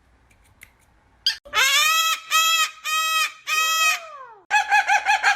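A bird calling loudly. Four long, even calls in quick succession end in a falling call. Then comes a fast run of short, chattering notes, about six a second.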